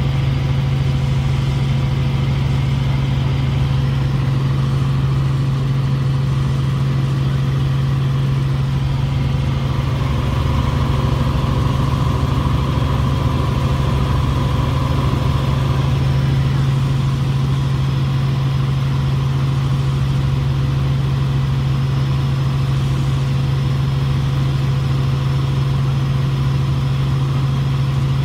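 Helicopter in flight heard from inside the cabin: its engine and rotors make a steady low hum with fainter higher tones, unchanging at cruise.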